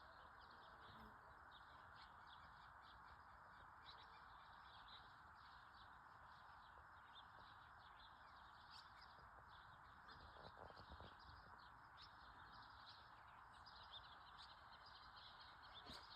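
Faint natural ambience: a steady hiss with many short, high bird chirps.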